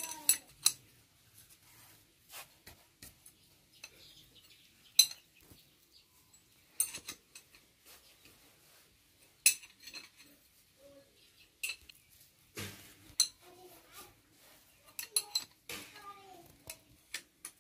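Irregular sharp metal clinks of spanners knocking against the bolts and steel differential case of a Massey Ferguson tractor crown wheel as its bolts are worked by hand, the loudest knocks about five and nine seconds in.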